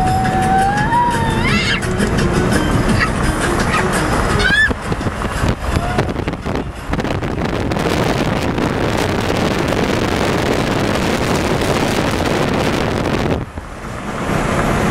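Steady rush of road and wind noise from a vehicle travelling at highway speed, with a brief drop about thirteen seconds in. In the first two seconds a single high tone glides upward over it.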